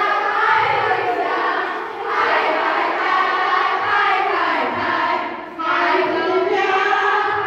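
A group of young women singing and shouting together in unison, led on a microphone, in loud phrases of about two seconds with short breaks between.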